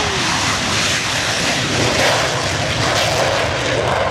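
English Electric Canberra's twin Rolls-Royce Avon turbojets at take-off power as it lifts off and climbs away: a loud, steady jet noise.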